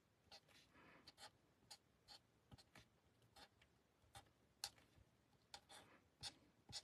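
Faint, irregular short scratches of a Stampin' Blends alcohol marker brushed across cardstock in quick strokes.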